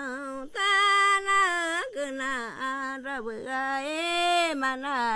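A woman's solo voice singing a slow, chant-like melody, unaccompanied, with long held notes that waver and slide between pitches and brief pauses for breath.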